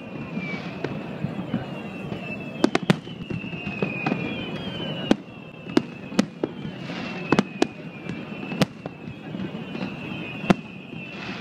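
Aerial fireworks bursting: a dozen or so sharp bangs at uneven intervals, some in quick pairs, over a continuous rumble. A thin, wavering high tone runs underneath.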